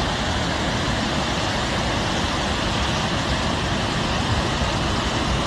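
Muddy flash-flood torrent pouring through a concrete channel and down a rocky slope: a loud, steady rushing of water with a deep rumble underneath.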